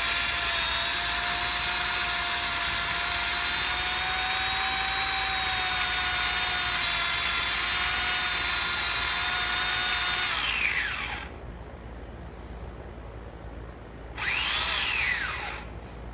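Power saw cutting into a tree trunk. Its motor whines steadily for about ten seconds, then winds down with falling pitch. A few seconds later there is a short burst that revs up and back down.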